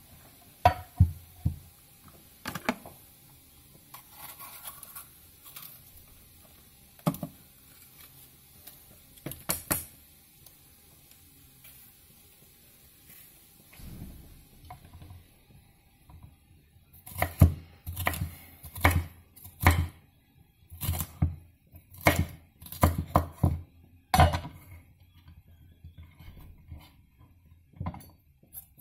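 Chef's knife chopping red pepper on a wooden cutting board: a run of sharp knocks as the blade strikes the board, roughly two a second, starting a little past halfway. Before that, a few scattered knocks and clatter as the board is set down and handled.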